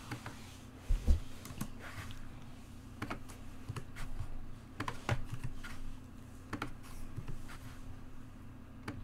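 Computer keyboard keys tapped at an irregular pace while code is typed, faint, over a low steady hum.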